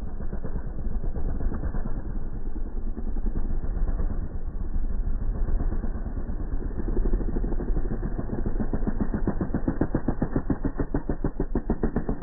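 Dirt bike engine running with a rapid, even firing rhythm as the bike carves through a rutted dirt corner. It sounds muffled and dull, with little top end.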